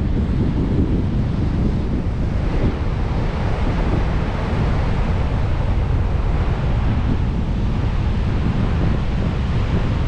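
Rough surf breaking and washing up a sandy beach in a strong northwest wind, with the wind buffeting the microphone throughout in a steady, heavy low-end rush.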